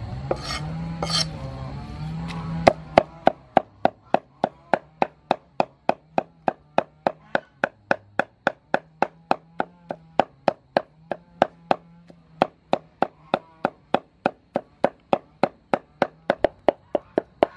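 Meat cleaver mincing raw pork on a round wooden chopping block: quick, even strikes of the blade into the meat and wood, about three to four a second. For the first few seconds a low background hum runs under two strikes, then stops suddenly.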